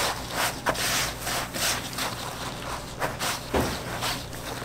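Dry breadcrumbs rustling and crunching as gloved hands press and pat a batter-coated sandwich into a metal tray of them, in a run of quick scraping strokes with a couple of short knocks.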